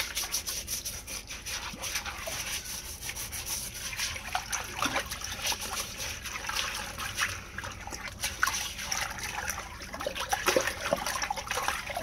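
Plastic toilet brush scrubbing the walls of a sump pit in the water, a run of brush strokes with swishing and splashing as it scrubs off thick iron ochre deposits.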